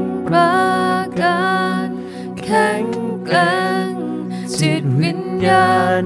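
A woman singing a slow Thai worship song live into a microphone, in several held phrases with vibrato and short breaths between them, over sustained acoustic guitar chords.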